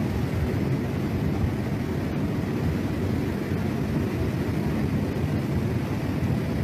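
Muddy floodwater of a river in spate rushing past: a steady, deep rushing noise with no let-up.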